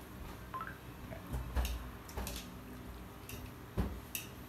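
Eating sounds as a person eats spicy instant noodles: scattered clicks and small knocks, with a low thump about a second and a half in and another near the end.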